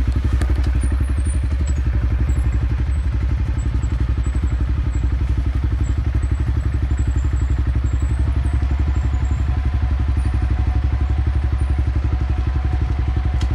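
Motorcycle engine running steadily at low revs, its firing pulses even and unbroken.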